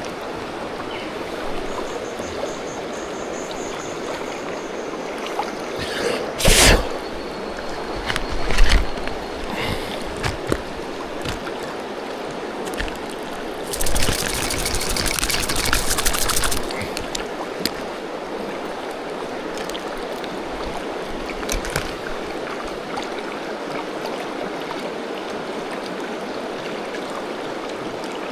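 The Tyenna River flowing steadily, running fairly high. Over it come close handling knocks and rustles, the loudest about six and a half seconds in, and a dense rattling burst lasting about two and a half seconds midway.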